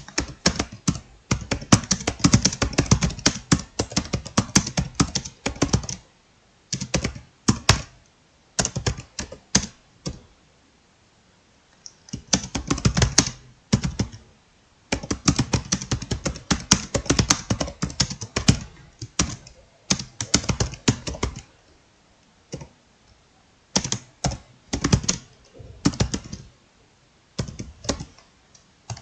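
Fast typing on a laptop keyboard: quick runs of keystrokes broken by short pauses, the longest about two seconds, a third of the way in.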